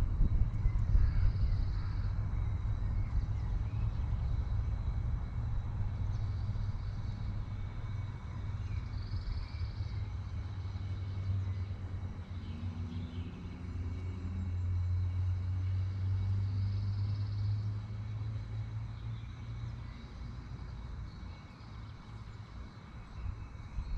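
A steady low rumble, swelling between about twelve and twenty seconds in and fading near the end.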